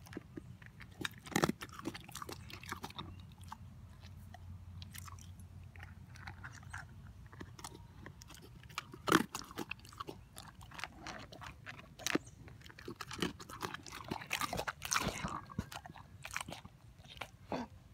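Wolfdog chewing and crunching dry kibble, eating out of a metal pot: irregular crunches all through, the loudest about nine seconds in and a busy run of them around fourteen to fifteen seconds.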